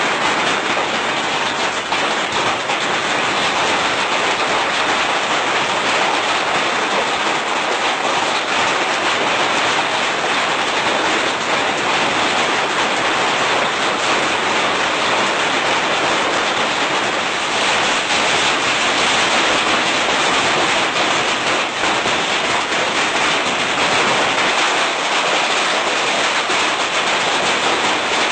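Heavy rain in a storm: a loud, steady, dense hiss of downpour that holds without a break.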